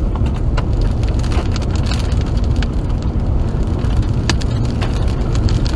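Wind and rain on a moving car, heard from inside the cabin: a steady low rumble of road and wind noise with scattered sharp ticks of raindrops hitting the car.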